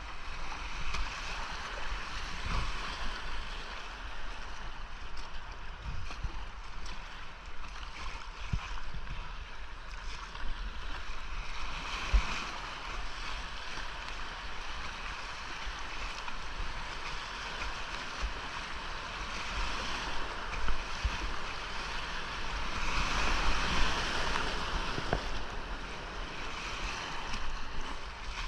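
Whitewater rapids rushing steadily around a kayak running a low-water creek, swelling louder about three quarters of the way through. Scattered low thumps and a few sharper knocks sound over it.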